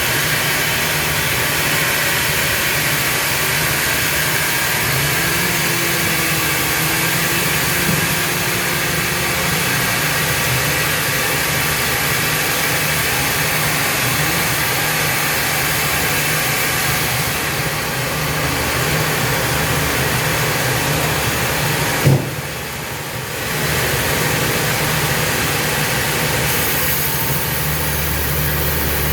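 Sawmill machinery running steadily: a low motor hum under a dense, even hiss. A sharp click sounds about three quarters of the way through, and the sound briefly drops after it.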